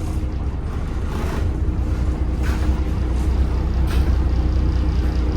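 Temsa Avenue LF 12 city bus with a DAF diesel engine running, a steady deep rumble with a faint steady whine, and a few brief rattles.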